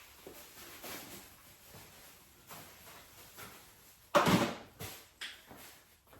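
Objects being handled and moved about on a table, with soft scattered knocks, then one loud knock about four seconds in and two lighter ones just after.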